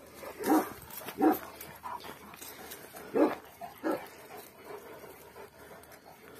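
A dog barking: four short barks in the first four seconds.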